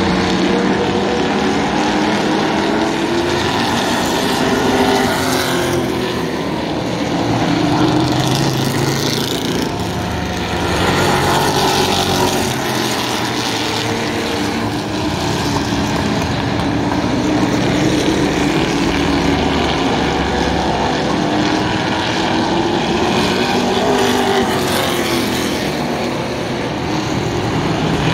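Vintage stock cars, V8 and inline-six, racing around a short oval. Their engines rise and fall in pitch, and the sound swells and eases every few seconds as the cars come past.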